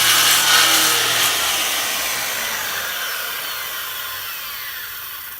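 Handheld circular saw (Skilsaw) running as it cuts through a wooden board. The loud, steady saw noise fades gradually through the second half, with a falling whine as the blade winds down.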